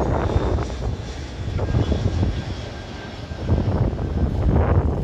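Airbus A321 airliner's jet engines rumbling low as it passes overhead on final approach with its landing gear down. The rumble swells and fades unevenly.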